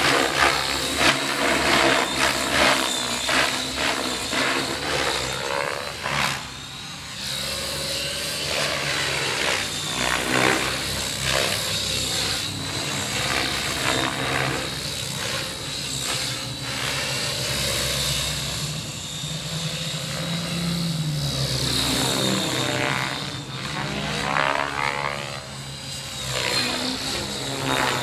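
Radio-controlled 3D aerobatic helicopter in flight: the rotors chop rapidly over a steady high whine. The pitch and loudness rise and fall several times as the helicopter swoops and turns.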